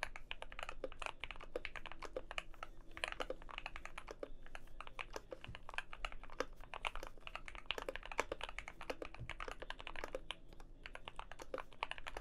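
Continuous fast typing on a Keychron Q2 mechanical keyboard with Gateron Ink Black V2 linear switches, a steel plate, foam and tape mod, and PBT keycaps: a dense, unbroken stream of keystrokes.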